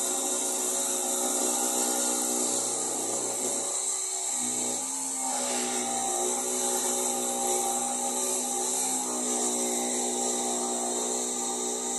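Electric jigsaw cutting through a painted board, its motor running steadily with the rasp of the blade. About four seconds in it briefly slows and changes pitch, then runs on steady.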